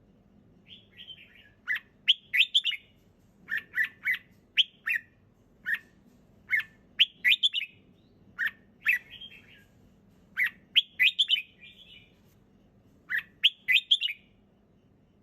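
Red-whiskered bulbul singing: short, bright phrases of a few quick notes, repeated about once a second with brief pauses between them.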